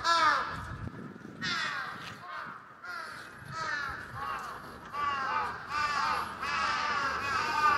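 Crows cawing, a run of harsh caws that each drop in pitch, spaced out at first and coming almost without pause in the second half.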